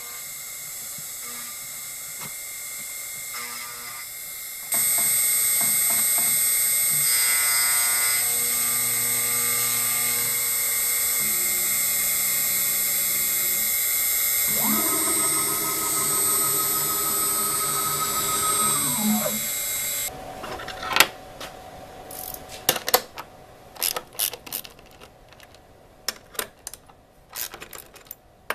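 CNC router spindle running with a steady high whine while the axis stepper motors move, their pitched tones changing in steps and gliding up and down; the level jumps up about a fifth of the way in. About two-thirds of the way through the machine stops, and a series of sharp metal clicks and clanks follows as the steel clamp nuts are loosened and the aluminum plate is handled.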